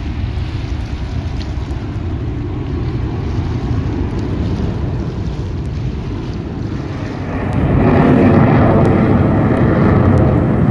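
Aircraft engine noise with wind buffeting the microphone, a steady low rumble that swells louder about seven seconds in as the aircraft draws closer.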